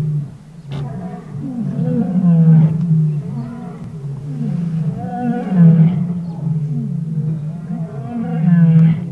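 Lion roaring: a series of long, deep roars that swell and fade every few seconds.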